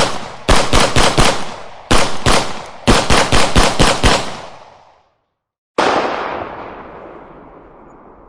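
Handgun sound effects: several quick strings of rapid shots in succession, then about six seconds in a single shot with a long echoing tail.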